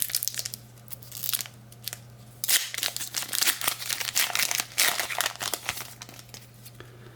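Trading-card pack wrapper crinkling and cards being handled, in scratchy bursts that are busiest in the middle, over a faint steady electrical hum.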